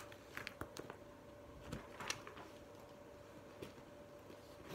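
A quiet room with a faint steady hum and a few soft, scattered clicks and taps.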